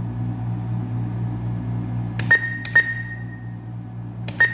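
ATM keypad beeping as number keys are pressed: two short high beeps about half a second apart, two seconds in, and a third near the end, over a steady low hum.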